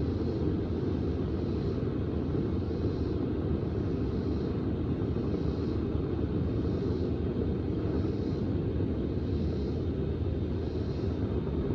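Steady low roar of a propane metal-melting furnace burner running. A faint high buzz swells and fades about once a second.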